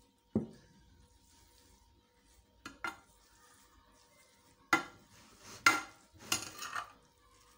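Metal spoon scraping and knocking against a glazed clay dish as it stirs and loosens steamed vermicelli for seffa, moistened with a little water between steamings. The strokes come in separate scrapes: one just after the start, two about three seconds in, and a cluster from about five to seven seconds in.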